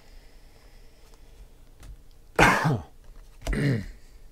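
A man coughing twice, the first cough about two and a half seconds in and the second about a second later, each lasting about half a second.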